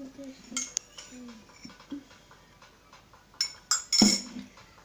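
Utensils clinking and scraping against a bowl, with a cluster of loud, sharp clinks about three and a half to four seconds in.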